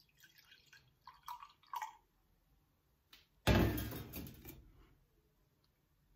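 Coffee poured from a glass carafe into a ceramic mug: faint trickling over the first two seconds. About three and a half seconds in comes a louder knock with rustling that fades over about a second.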